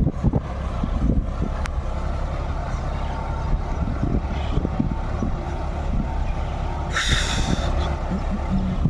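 John Deere 5210 tractor's diesel engine running steadily with a low, uneven rumble while ploughing. A short hiss comes about seven seconds in.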